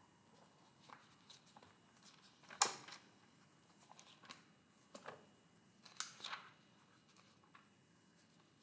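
Pages of a Bible being turned by hand: a few quick paper swishes and rustles, the loudest about two and a half seconds in and another cluster around five to six seconds.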